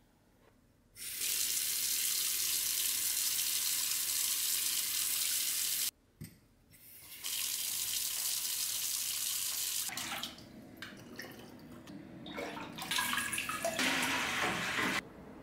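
Kitchen faucet running in a steady stream, breaking off for about a second and then running again. After that, water is poured from a glass measuring jug into a galvanized metal watering can, splashing unevenly until the pouring stops near the end.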